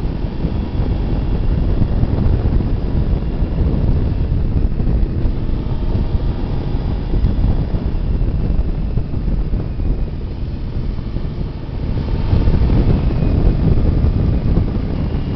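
Wind rushing and buffeting over the microphone of a Suzuki GSX-R sport bike at about 100 km/h, with the bike's engine running underneath. The sound dips briefly about twelve seconds in, then comes back louder.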